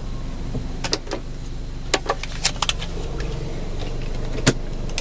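2006 Honda Accord automatic engine running at low speed, a steady low hum heard from inside the cabin, with sharp irregular clicks and rattles in pairs and clusters, the loudest about four and a half seconds in.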